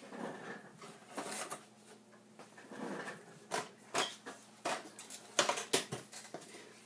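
Handling noise: soft rustling in the first second or so, then a quick run of sharp clicks and taps from about three and a half seconds in.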